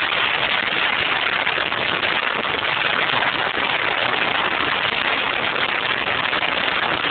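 Steady rush of wind and road noise from a moving car, a 1.4 Rover 214Si, heard from inside.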